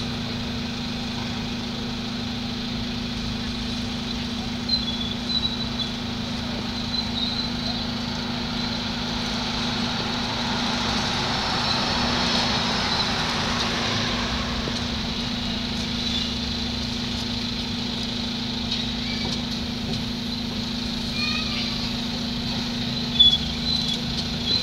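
Street traffic noise around a city bus standing at a stop with its engine idling as a steady hum, and a car driving past, swelling and fading about halfway through.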